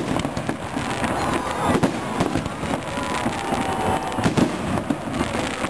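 Fireworks display: aerial shells bursting in quick succession, a dense run of bangs and crackling with no pause.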